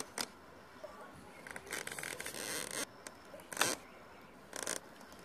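Irregular rustling and scraping, with a few short sharp clicks, one about three and a half seconds in.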